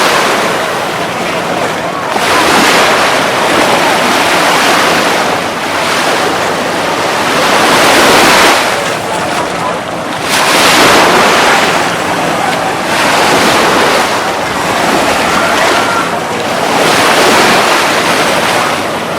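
Ocean surf breaking on the beach, the wash of noise swelling and falling back every two to three seconds as waves come in.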